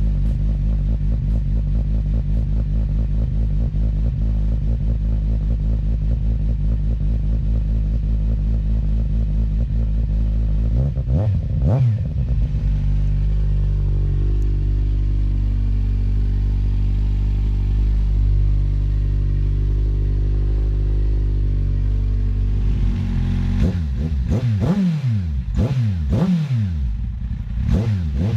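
2007 Kawasaki Z1000's inline-four idling through DANMOTO Carbon GP aftermarket mufflers, with a deep, steady note. It is blipped once about eleven seconds in, then revved in a string of quick blips near the end.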